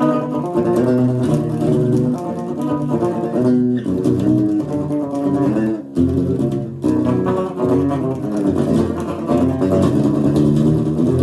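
Guitar played unplugged, picking a low, dark-sounding metal riff with quickly changing notes and a brief break about halfway through.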